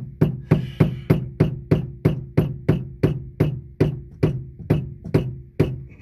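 Black rubber mallet tapping a screwdriver used as a punch against the plastic lock ring of a Dodge Ram's fuel pump module, turning the ring to seat the new pump in the tank. It strikes steadily about three times a second, about nineteen blows in all, each with a short ring.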